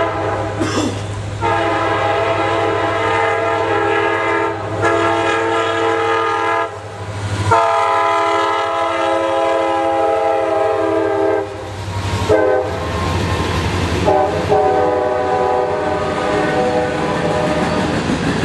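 Diesel freight locomotive sounding its horn for a road crossing in a series of long blasts with one shorter one, over the steady low rumble of its engine. Hopper cars roll past with wheel noise on the rails.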